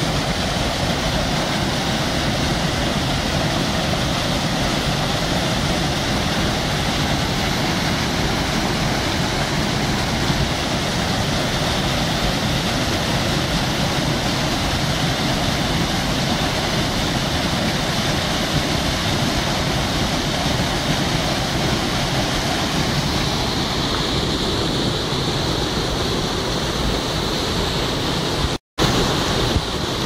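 Waterfall and white-water mountain stream rushing over rocks, a steady, unbroken noise of falling water; it cuts out for an instant near the end.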